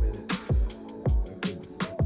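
Background music: an R&B song with a steady beat of deep kick drums and crisp hi-hat and snare hits.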